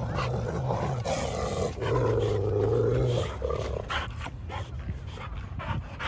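Dogs growling in rough play: two long, low growls in the first three seconds, the second one louder, then quieter scuffling.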